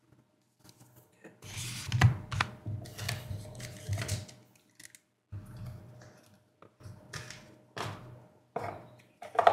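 Trading cards and a cardboard storage box being handled by hand: irregular rustling and sliding with light knocks and clicks. It starts about a second and a half in and pauses briefly around the middle.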